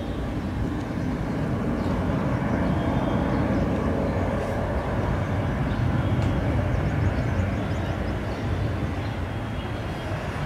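Turbofan engines of a C-17 Globemaster III on landing approach, a steady low rumble that grows a little louder about two seconds in.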